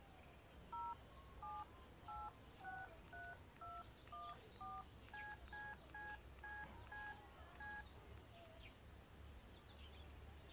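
Telephone keypad dialing tones: about fifteen short two-note beeps in quick succession as a phone number is keyed in, sounding faint.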